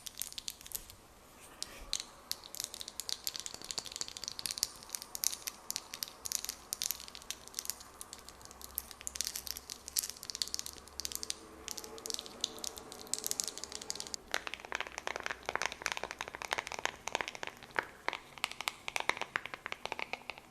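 Close-miked ASMR hand sounds: a dense run of small, crisp clicks and crackles. The sound grows fuller and busier about two-thirds of the way in.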